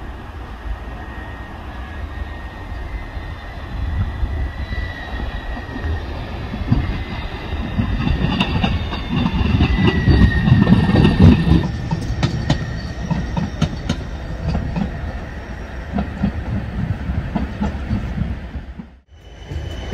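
Siemens Avanto tram-train running along the track: a low rumble of wheels on rail with clicks over the joints and a faint high whine, growing louder toward the middle. The sound cuts out briefly near the end and comes back.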